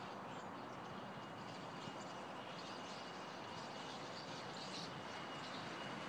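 A huge flock of birds calling all at once: a dense, continuous din of many overlapping short chirps. A faint steady high whine runs through most of it.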